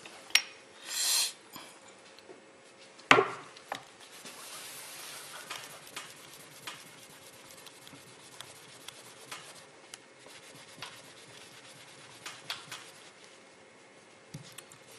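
A cloth rubbed by hand over a small metal-putty test piece to polish it: soft rubbing with scattered small ticks. About a second in there is a short hiss, and a sharp knock about three seconds in is the loudest sound.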